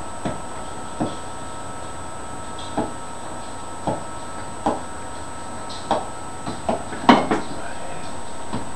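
Irregular light knocks and clicks, about a dozen, from objects being handled, the loudest a sharper clatter about seven seconds in, over a steady background hum.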